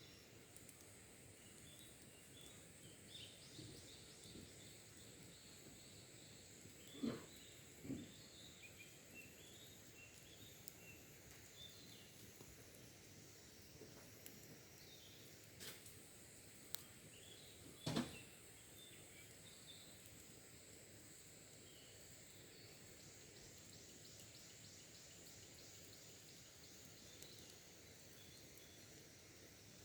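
Wild birds chirping faintly and intermittently over a steady high-pitched whine, with three sharp pops from the campfire's burning wood and embers, two close together and one later.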